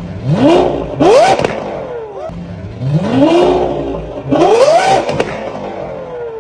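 A powerful engine revved in four quick throttle blips. Each blip sweeps sharply up in pitch and drops back, and they come in pairs, the second of each pair pulled higher than the first.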